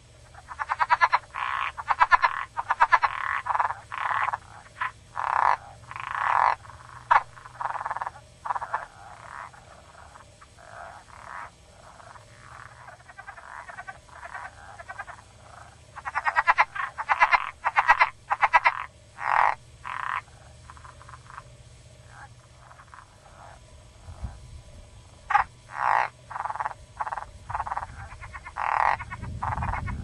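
Frogs calling: many short, rapidly pulsed notes in quick runs, loudest in two spells near the start and around the middle and scattered in between. A low rumble comes in near the end.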